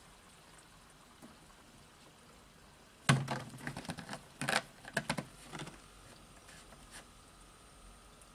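Engine coolant draining from a Caterpillar 3412 into a container: a faint trickle, then a sudden run of splashing and gurgling about three seconds in that lasts a couple of seconds, loudest at its start.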